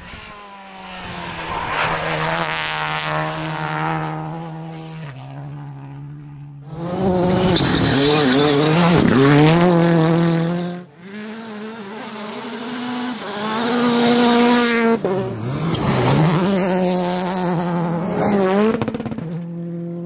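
Rally car engines revving hard, the pitch climbing and falling again and again through gear changes and throttle lifts. The sound drops out abruptly about eleven seconds in, then builds again to a steady high-revving note.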